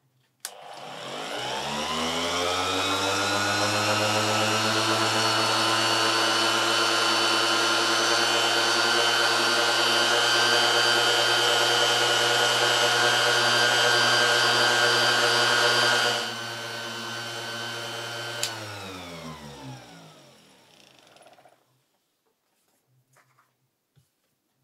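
RYOBI RSE-1250 random-orbit polisher with a buffing pad, polishing a lacquered guitar neck. Its motor spins up with a rising whine, runs steadily, gets quieter about sixteen seconds in, then clicks off and winds down in falling pitch.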